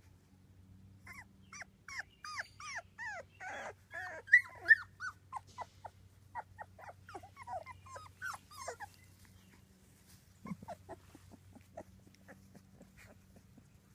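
Two-week-old Labrador puppies squeaking and whimpering: a rapid string of short, high calls that each slide downward in pitch. The calls thin out after about nine seconds, with a few more a little later.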